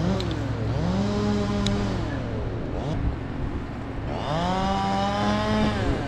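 Chainsaw revving up, holding high and dropping back twice, over a steady low engine hum.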